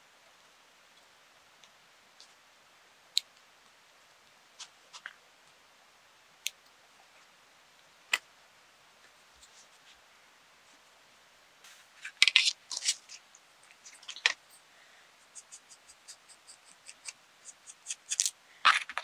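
Small craft scissors snipping, a quick cluster of snips just past the middle, among sparse single sharp clicks of small pieces being handled. A run of light ticks and a louder burst of handling comes near the end.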